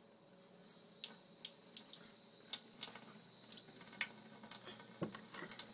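A thin stream of water running from a kitchen sink tap, faint, with irregular small splashes and drips from about half a second in as a child's hands move under it.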